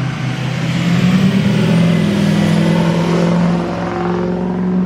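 Motor vehicle engine running, with a steady low hum and a high whine that swell to their loudest a second or two in and then ease off.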